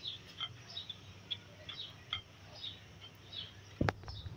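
Faint, scattered short chirps of small birds in the background, with one soft knock about four seconds in as a breaded cutlet is set down on a glass platter.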